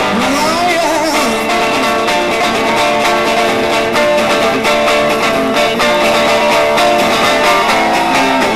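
Live rock band playing a loud instrumental passage between sung lines: electric guitars with held and bent notes over a steady drum beat. A sung line trails off in the first second.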